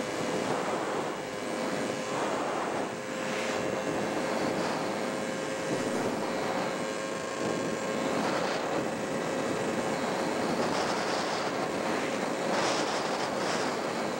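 Road and wind noise of a car driving at highway speed, a steady rush that swells and eases every few seconds, with a faint steady hum under it.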